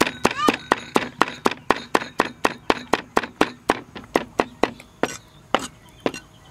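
Steel cleaver chopping garlic cloves on a thick round wooden block, quick even strokes about four a second. The strokes pause briefly near the end, then a couple more fall.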